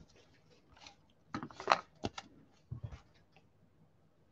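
Stack of trading cards being handled: a few short papery rustles and sharp clicks as the cards are flicked and squared, the loudest a little under two seconds in, with a couple of soft knocks on the table just after.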